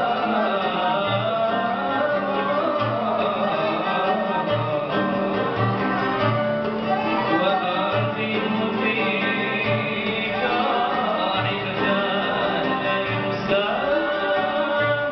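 An ensemble of mandolins, ouds, violins and guitars playing a melody together, with singing over it and a steady low beat a little under once a second.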